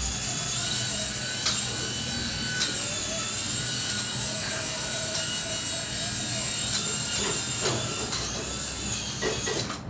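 Hand-sensor flying ball toy hovering: its tiny rotor motor gives a steady high-pitched whine that wavers a little in pitch, with a few short clicks scattered through.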